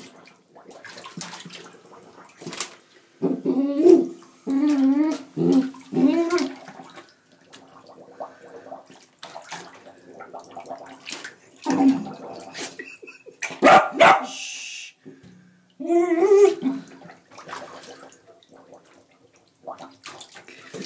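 Dachshund growling and grumbling in short bursts while pawing at a bathtub drain stopper, with claws clicking and scraping on the tub.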